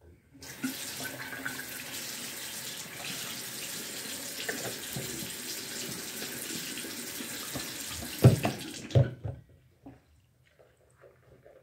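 Bathroom sink faucet running steadily into the basin. A couple of loud knocks come near the end, and the water stops about nine seconds in.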